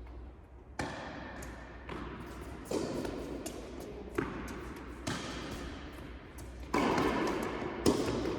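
Tennis rally on an indoor court: a ball struck by rackets and bouncing, about seven sharp knocks roughly a second apart, each with a short hall echo.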